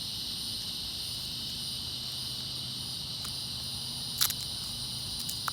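Steady chorus of insects, a continuous high shrill drone, with one sharp click about four seconds in and a couple of faint ones as the ratchet strap's webbing is fed through the ratchet.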